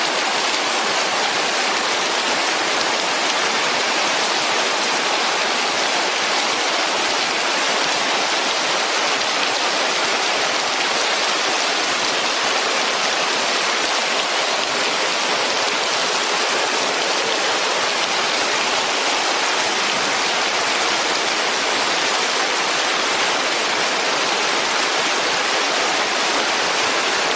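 Heavy rain falling and a storm-swollen drainage ditch of muddy floodwater rushing past, together making a steady, unbroken noise.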